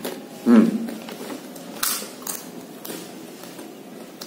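Crisp crunches of a dried gadung (wild yam) chip being bitten and chewed, two or three of them near the middle, after a brief vocal sound about half a second in.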